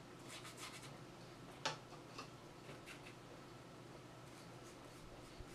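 Faint scratching of a paintbrush laying acrylic paint onto a small canvas, in a few short strokes, with one sharp tick about a second and a half in.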